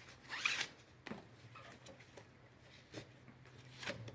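A strap being pulled through a loop on a rucksack frame: a short rasp about half a second in, then a few light clicks and knocks from handling the strap and frame.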